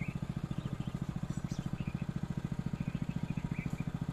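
Portable fire pump's small engine running steadily at a constant speed, with a fast, even chugging beat.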